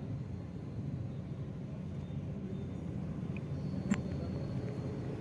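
Steady low rumble of street background noise, with one short sharp click about four seconds in.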